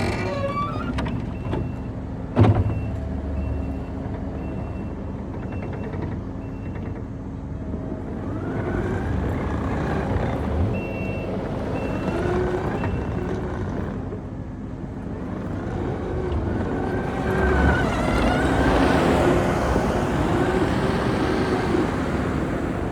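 Kubota SVL95-2S compact track loader's diesel engine running while the machine works, its pitch rising and falling as it revs under hydraulic load. A single sharp clunk comes about two and a half seconds in.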